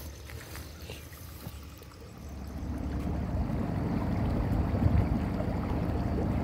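A boat under way on the river: about two seconds in, a steady low rumble starts, grows louder and holds, with a light wash of moving water.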